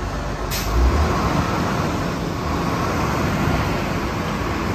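Water well drilling rig's power unit running steadily while its control levers are worked, with a short hiss about half a second in.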